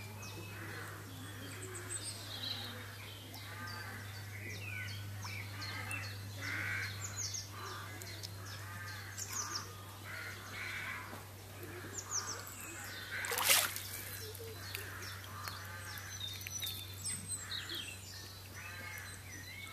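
Birds calling over and over in the background, short arched and down-sliding calls, over a steady low hum. A single sharp crack about two-thirds of the way through is the loudest sound.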